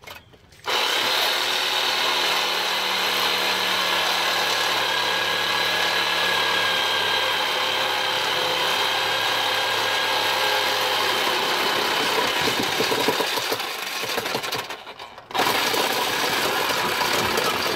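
Corded reciprocating saw cutting through a car's exhaust pipe just ahead of the catalytic converter, running steadily. It falters, stops for about a second near the end and starts cutting again.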